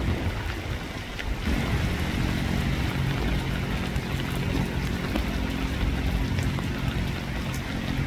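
Steady rain falling. About a second and a half in, a low, steady motor-like hum joins it and holds until near the end.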